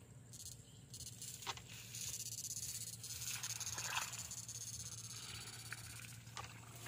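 Tall grass rustling as a person wades through it probing with electrofishing poles, with a few faint clicks and snaps and a low steady hum underneath.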